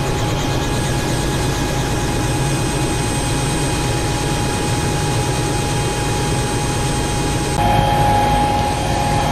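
Robinson R66 helicopter's turbine engine and rotor running steadily, a low hum with a thin high whine over it. Near the end the sound changes abruptly to the inside of the cabin, where several steady tones stand out.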